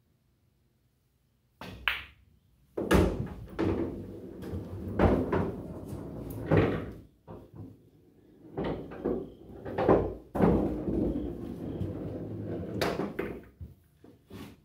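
Pool shot on a coin-op Valley bar-box table: the cue ball is struck about two seconds in and clicks into an object ball. Then comes a long run of heavy thuds and rumbling, like a pocketed ball dropping and rolling through the table's ball-return channel, which fades out near the end.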